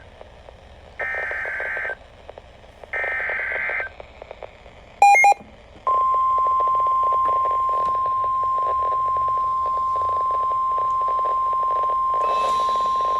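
NOAA Weather Radio alert over crackly radio reception: two roughly one-second bursts of the SAME digital header data, a short loud blip about five seconds in, then the steady single-pitch 1050 Hz warning alarm tone from about six seconds in, announcing a new warning.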